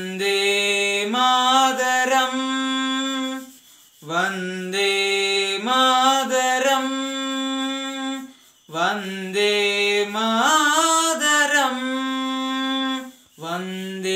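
A teenage boy singing alone without accompaniment, in long held notes. He sings three phrases of about four seconds each, with short breaths between them.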